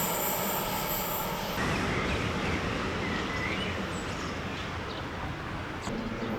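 Train rolling past with a steady rumble; a high wheel squeal carries on for the first second and a half, then stops. A few faint bird chirps follow.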